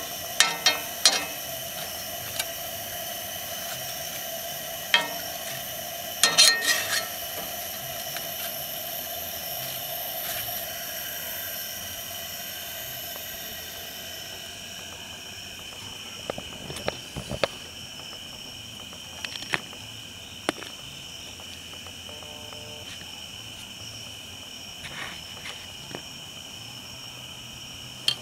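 A steady chorus of night insects such as crickets, keeping up a high even trill throughout. Sharp clicks and knocks from handling break in, a cluster near the start and another about six seconds in, with a few more later.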